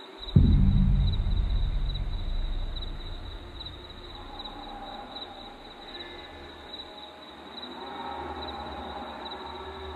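A deep boom hits about a third of a second in and dies away over two to three seconds. Under it runs a steady high pulsing tone, with faint sustained tones swelling around the middle and again near the end.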